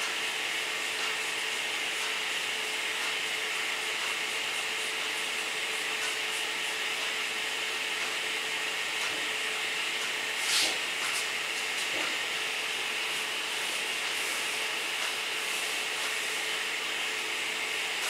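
Steady hiss with a faint hum, and now and then the soft scrub of a paintbrush working acrylic paint on canvas. One louder brief rustle comes about ten seconds in.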